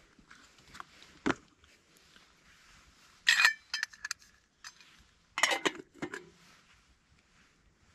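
Metal camp cook pot and lid being handled: a sharp knock about a second in, a loud ringing clink a little after three seconds, and a longer clatter of metal on metal about five and a half seconds in.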